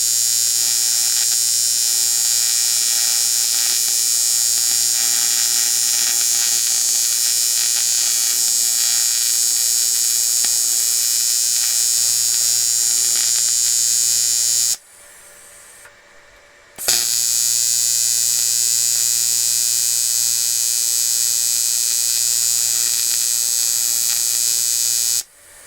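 Electric welding arc buzzing steadily while welding a crack in an aluminium alloy wheel. The arc cuts out about fifteen seconds in, strikes again two seconds later, and stops just before the end.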